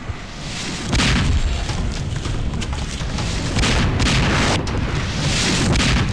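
Mortar shells exploding, as film sound effects: a series of heavy booms, the first about a second in and several more after it, each a long rush of noise.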